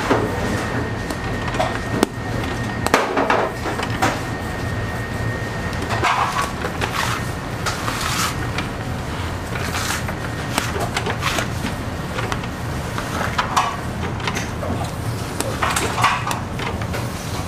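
Dough pieces being slapped and set down on a worktable and a digital scale, making irregular soft knocks every second or two. Under them runs a steady low hum, with a thin high whine that stops about three seconds in.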